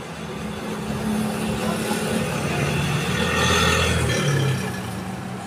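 Engine noise of a passing motor vehicle: it swells for about three and a half seconds, then fades, its pitch dropping as it goes.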